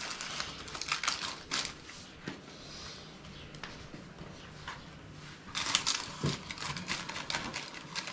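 Paper pie cases rustling and crinkling under the hands as pastry lids are pinched onto pork pies, in short scattered bursts that thin out midway and pick up again near the end.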